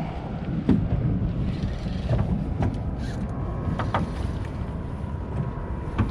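Wind buffeting the microphone over the low, steady rumble of a fishing boat on the water, with a handful of short, sharp knocks and clicks scattered through.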